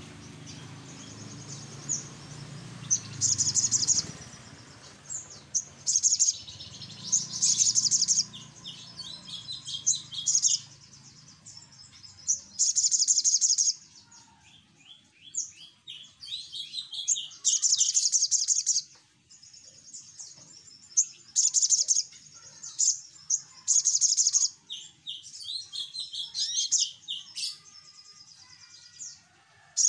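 Caged sunbird singing: repeated bursts of very high, rapid trills and twittering, mixed with runs of quick ticking notes, every second or two. A low steady hum runs under the song for the first dozen seconds.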